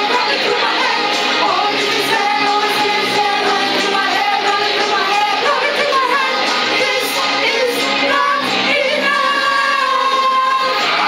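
A group of people singing a pop song together, a woman's voice and men's voices, with held notes.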